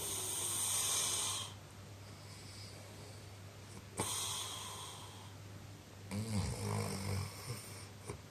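Snoring in deep sleep: a long raspy breath at the start and another about four seconds in, then a throatier, rattling snore around six seconds.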